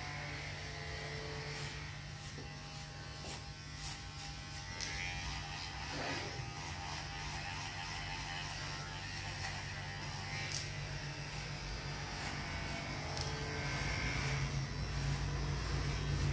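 Cordless electric hair clipper buzzing steadily as it cuts short hair on the back and side of the head, with a low rumble growing louder near the end.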